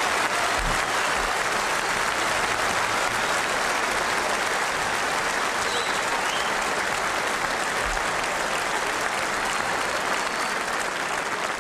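Arena crowd applauding steadily, greeting the winner of a boxing bout just announced on points.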